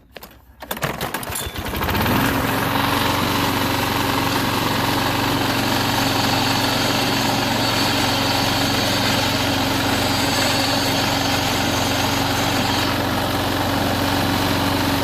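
Toro Super Recycler push mower's engine starting about a second in, quickly coming up to speed and then running steadily at a constant pitch.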